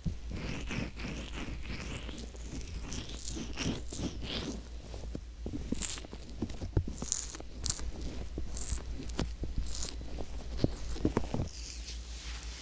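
Fingertips rubbing and pressing on the silicone ear of a binaural microphone, heard from inside the ear as close, crackly, scratchy rustles and soft taps in an irregular stream.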